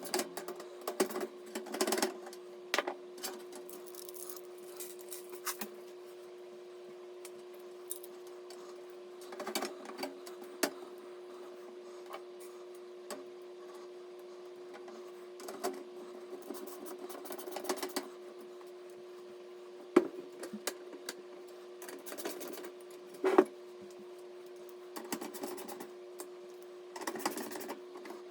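Scattered clicks, taps and short rustles of computer parts being handled and fitted, over a steady hum; the two sharpest clicks come about 20 and 23 seconds in.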